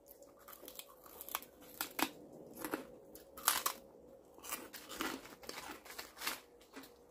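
Crispy roasted pork skin being bitten and chewed, a string of sharp, irregular crunches, one or two a second, that are loud close to the microphone.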